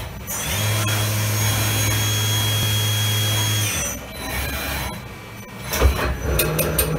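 Fanuc Robodrill T10A CNC vertical machining centre running through a cycle: a steady motor whine for about three seconds as the spindle head moves, then a quieter spell, then a quick run of clicks and clunks near the end as the tool changer works.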